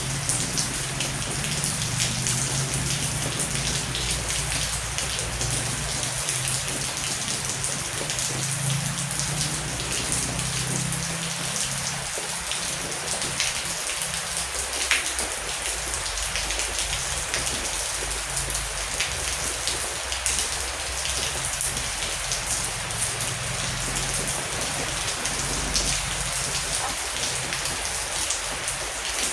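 Heavy rain falling steadily, with many sharp individual drop hits. A low rumble sits underneath through roughly the first half.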